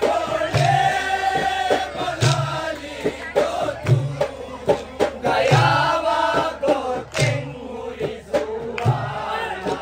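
Maldivian langiri performance: a group of men chanting a song in unison, with a low drum beat about every second and a half and sharp clacks between the beats.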